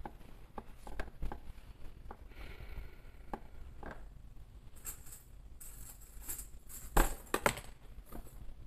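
Fabric being handled and shifted, with scattered small clicks of sewing clips being fastened on its edge; the loudest clicks come in a quick cluster about seven seconds in.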